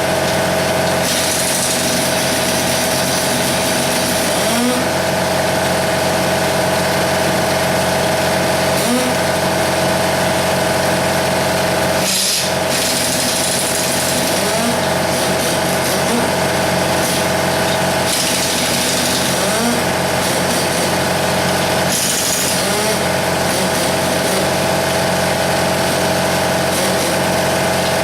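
Shop air compressor running steadily at one pitch, with stretches of hissing air from an air line or air tool coming and going every few seconds.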